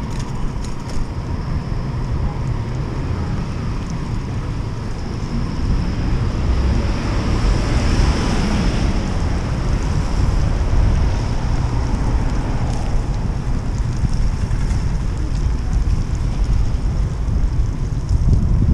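Wind buffeting the microphone of a camera on a moving bicycle: a loud, steady, heavy low rumble over street noise. About seven to nine seconds in, a hiss swells and fades.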